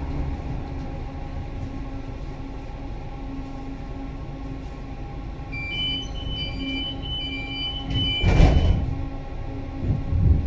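HF 11 AC tram interior with a steady rumble and motor hum. About halfway through, a run of short two-pitch warning beeps sounds for about three seconds, and the door shuts with a loud thump.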